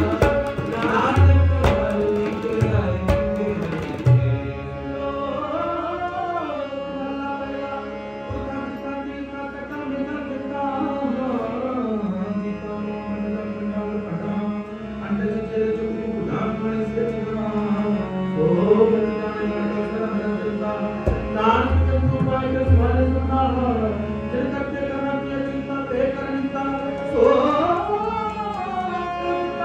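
Sikh kirtan: a harmonium holding steady chords under men singing slow, gliding melodic lines, with tabla strokes; the deep drum strokes are loudest in the first four seconds and again about three-quarters of the way through.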